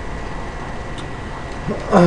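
Steady room noise with a faint click about a second in, then a person's voice starting near the end.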